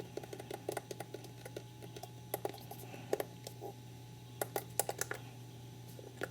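Keys being pressed: a run of irregular light clicks and taps, with a few louder ones about two and a half, three, and four and a half to five seconds in. A faint steady hum runs underneath.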